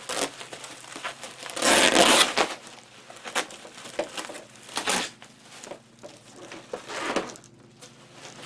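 Plastic packing material crinkling and rustling as bubble wrap and tape are pulled off a boxed CRT monitor, with one loud burst of rustling about two seconds in and scattered crackles after it.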